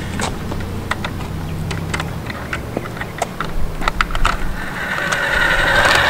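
Toy remote control car driving on concrete: a low steady motor hum with scattered light clicks and rattles, growing louder over the last second or so.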